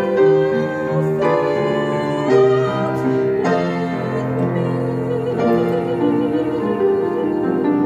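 A young woman singing solo with piano accompaniment, holding a long note with vibrato in the middle of the phrase.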